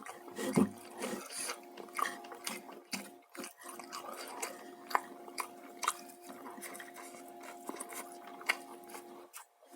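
A person chewing and biting fried chicken and rice close to the microphone: a string of short, irregular crunches and mouth clicks, over a steady low hum.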